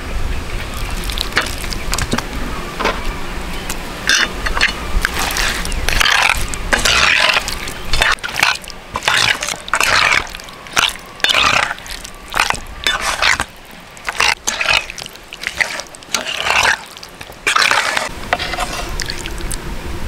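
Raw pork spare ribs being stirred and tossed with a spatula in a pan of thick, wet sauce: wet squelching and scraping strokes in an irregular run.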